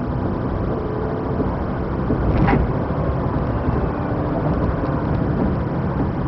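A car driving at speed, its engine and road noise heard from inside the car, the engine note shifting as it speeds up and slows. A single short knock sounds about two and a half seconds in.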